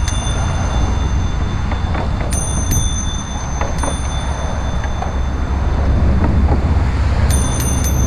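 Bicycle bell rung repeatedly: a few rings about two to four seconds in, then a quick run of rings near the end, each ringing on briefly. A steady low wind rumble on the moving microphone runs underneath.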